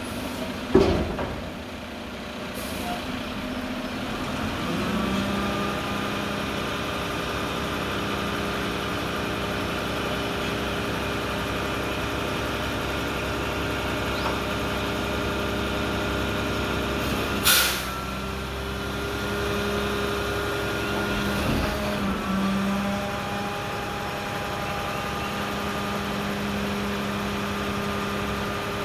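Diesel engine of a Mack front-loader garbage truck with a McNeilus body, running and stepping up to a higher steady speed about five seconds in. A sharp bang comes just under a second in, and a short hiss of air, as from the air brakes, comes about two-thirds of the way through.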